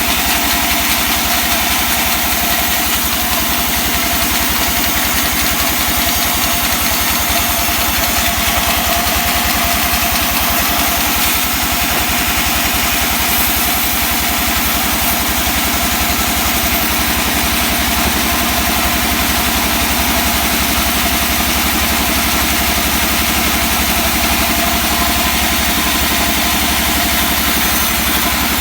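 Engine of a wood-sawing machine running steadily at an even speed, with no rise or fall throughout.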